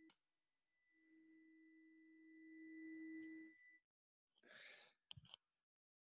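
A 320 Hz tuning fork ringing faintly after being struck on a hard surface: its low fundamental with a fainter higher pitch above it. The tones stop about three and a half seconds in, followed by a few faint handling clicks.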